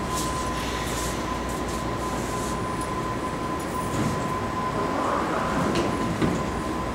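BART train standing at an underground platform with a steady high hum. Its doors slide shut about five to six seconds in, ending in a short thump.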